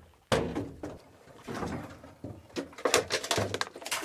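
A single heavy thunk about a third of a second in, like something shutting, then a run of lighter, irregular knocks and clatter.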